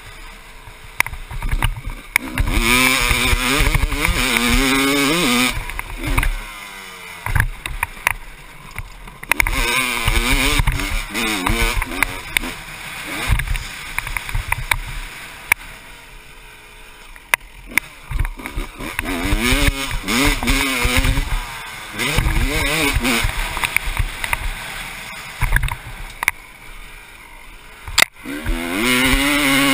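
1996 Honda CR250's single-cylinder two-stroke engine, heard on board while riding: it revs up hard in several long bursts, pitch sweeping up and down, and drops back off the throttle in between. Short knocks from the bike running over the rough dirt track.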